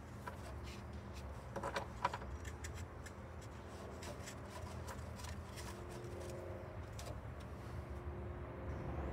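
Threaded nose jack point being twisted by hand into its fitting in the aircraft's belly: small irregular clicks and scraping, with a denser cluster of clicks about two seconds in, over a low steady hum.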